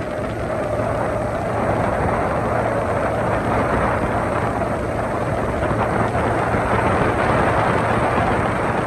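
Motorboat under way: its engine drones steadily under a constant rush of wind and water.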